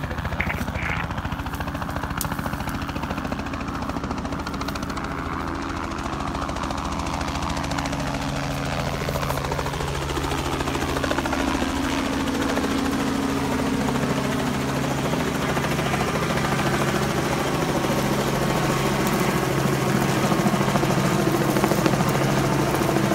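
Steady droning hum of rotor aircraft overhead, with a few shifts in pitch about ten seconds in.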